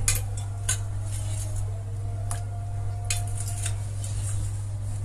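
Steel spoon scraping and clinking against a small steel cup and the rim of a steel pot while scooping out tamarind pulp: about six sharp clinks over a steady low hum.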